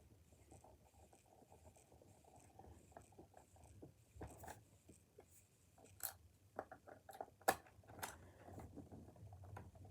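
Faint, scattered light clicks and taps of plastic buttons on a reassembled Xbox controller being pressed to test them, the B button not responding; the clicks come thicker in the second half.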